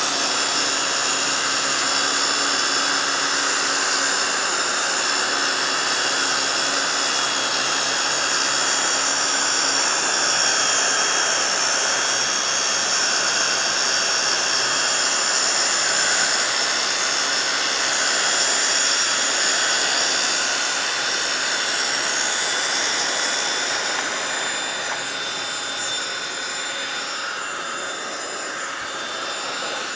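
Makita circular saw with a diamond rim blade cutting through a marble-look shower wall panel, with a blower running steadily alongside to clear the cutting dust. The sound eases near the end as the cut finishes, leaving the blower running.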